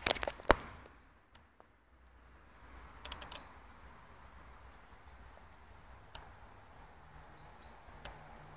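Quiet outdoor background with faint bird chirps now and then, broken by a few sharp taps and clicks: the loudest at the very start, a short cluster about three seconds in, and single ones later.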